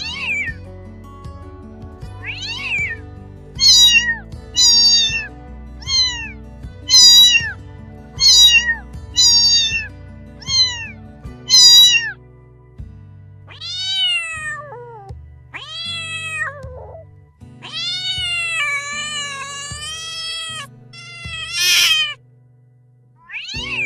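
A cat meowing over background music: a run of about a dozen short, quick meows, then a few longer ones, the longest drawn out for over two seconds.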